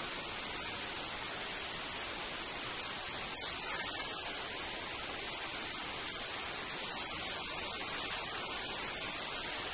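Steady, even hiss like static, with no distinct events.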